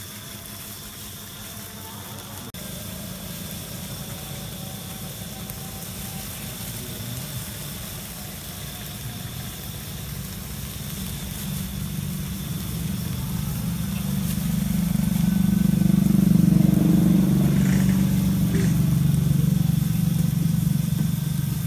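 A steady low engine-like drone that grows louder past the middle and eases off slightly near the end, over faint sizzling of noodles in a steaming wok.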